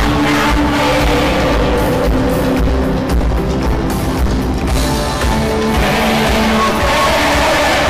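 Rock band playing an instrumental passage with electric guitar and drum kit, and no singing.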